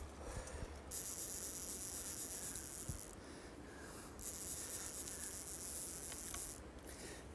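Salmon fly reel's ratchet buzzing in two spells of about two seconds each while a hooked spring salmon is played on the rod, over a steady low rush of river and wind.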